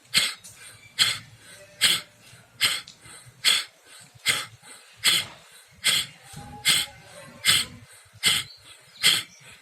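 A man doing bhastrika pranayama (bellows breath): forceful, rhythmic breaths driven through the nose. About a dozen sharp, evenly spaced blasts come a little more than one a second.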